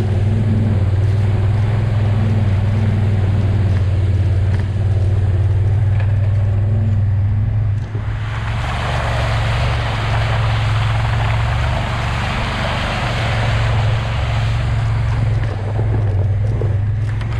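Off-road utility vehicle engine running steadily as it drives along a rough, wet trail. From about halfway a rushing hiss joins as the tyres run through meltwater and slush.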